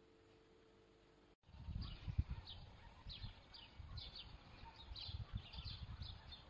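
Faint steady hum, then about a second and a half in, small birds chirping over and over in short falling notes, with a gusty low rumble of wind on the microphone.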